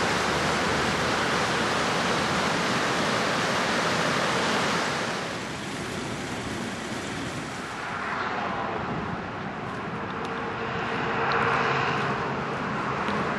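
Steady rushing noise of ocean surf and wind, easing about five seconds in and swelling again later. A faint steady hum joins in the second half.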